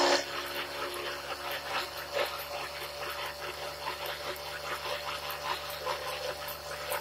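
Small milling machine running, its slot drill cutting a step in a piece of aluminium: a steady motor hum with an irregular crackle of the cutter taking chips.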